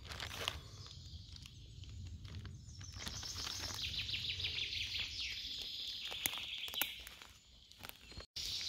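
A songbird sings a fast trill of high notes for about three seconds, starting about three seconds in, over scattered footsteps and rustling in forest leaf litter. The sound cuts out for an instant near the end.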